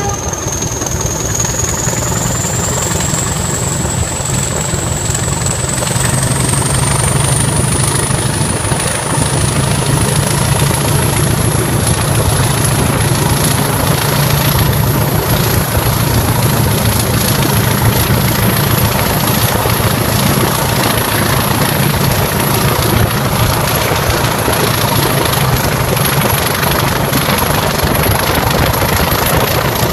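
Diesel locomotive hauling the train under power, heard from an open coach window: a steady engine drone with wind and running noise. A thin high whine rises in pitch over the first ten seconds or so and then holds steady.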